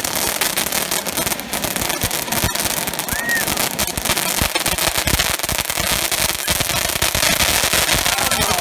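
Fireworks fountain spraying sparks: a steady loud hiss with dense crackling throughout.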